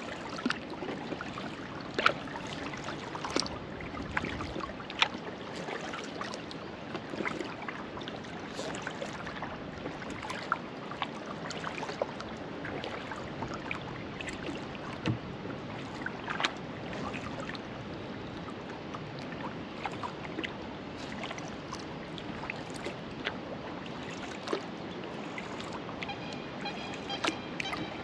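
Kayak paddling on lake water: the paddle blades swish and drip, with frequent short splashes and light knocks.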